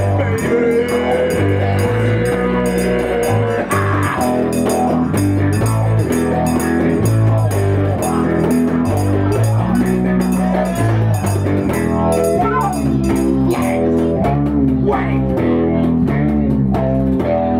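Live rock band playing an instrumental passage, with electric guitar, bass guitar and drums driving a steady beat.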